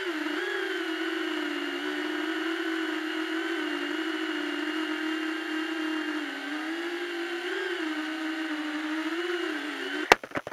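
Beta85X HD whoop drone's brushless motors and ducted propellers whining in flight, the pitch wavering up and down with throttle, heard from the drone's own onboard camera. Near the end a sharp knock and a few smaller knocks, and the whine cuts off.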